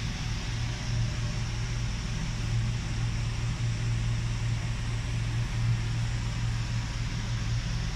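A motor-driven machine running steadily: a low hum with an even hiss of air above it.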